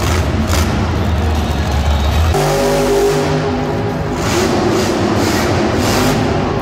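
Monster truck engine running at high revs, its note changing abruptly about two seconds in.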